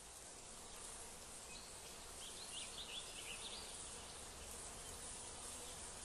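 Faint, steady insect buzzing, with a few short high chirps about two to three and a half seconds in.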